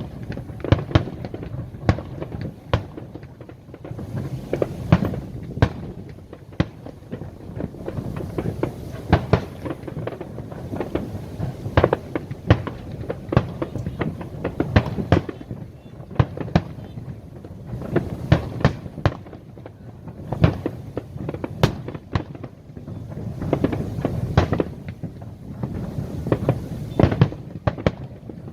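Aerial fireworks going off: many sharp bangs and crackles in quick, irregular succession over a continuous low rumble of booms.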